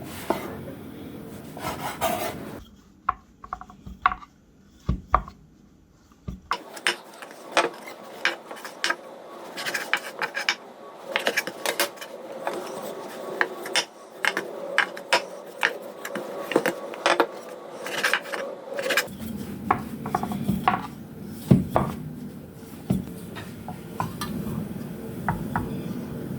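Kitchen prep sounds: scraping and rubbing with many irregular light knocks and clicks of utensils, in a few short edited segments.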